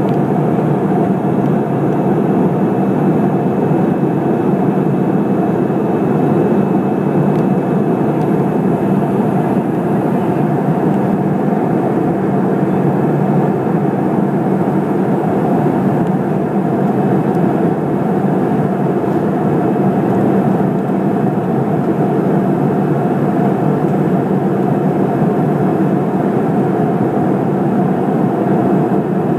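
Airplane in flight: a loud, steady engine drone that holds the same pitch throughout.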